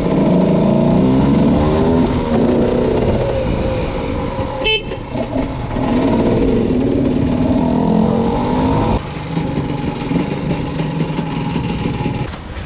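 Cagiva Mito 125's single-cylinder two-stroke engine revved hard while riding, its pitch rising and dropping back with each gear change. About nine seconds in the throttle is shut and the engine falls to a lower, steadier note as the bike slows.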